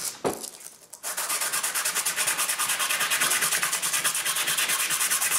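A small metal part rubbed rapidly back and forth on a sheet of sandpaper lying on a workbench, an even scratchy scrubbing of many strokes a second that starts about a second in after a short knock. The sanding cleans corrosion off the part so that it fits more easily.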